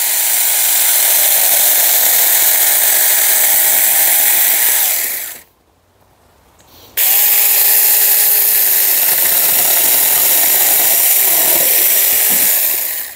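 Saker mini battery-powered electric chainsaw cutting through a branch of a log, running in two spells with a stop of about a second and a half near the middle. In the second spell the motor's pitch wavers and dips as the chain bites into the wood.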